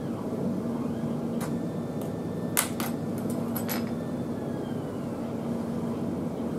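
A few sharp clicks and taps as small kit pieces are handled and pressed together on a cutting mat, clustered in the middle with the sharpest pair about two and a half seconds in. A steady low hum sits under them.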